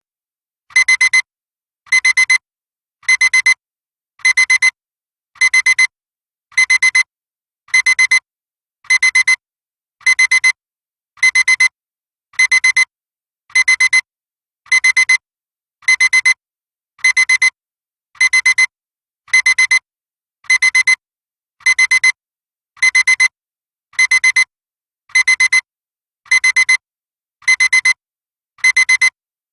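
Electronic alarm clock beeping: short high-pitched bursts of rapid beeps, each about half a second long, repeating evenly a little more than once every second with silent gaps between.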